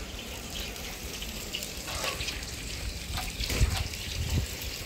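Steady rushing water noise with a low rumble underneath, and a few light knocks a little past the middle.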